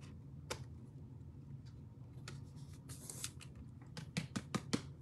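Faint clicks and rustles of trading cards and hard plastic card holders being handled, with a quick run of five or six sharper clicks near the end.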